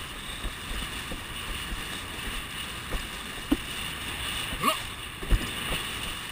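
A windsurf board running over choppy lagoon water: a steady rush of water and wind, with a few low knocks as the hull hits small waves, the loudest about five seconds in, and a short rising squeak just before it.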